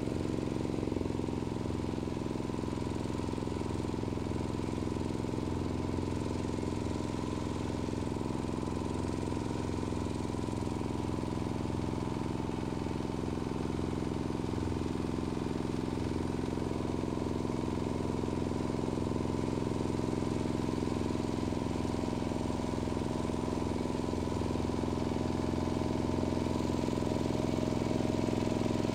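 Engine of a Zubr 12 hp walk-behind tractor running steadily under load as it climbs a slope, heard from a distance and growing slightly louder near the end.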